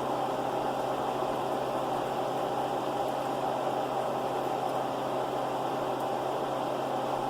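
Steady mechanical hum: one constant low tone under an even hiss, unchanging throughout.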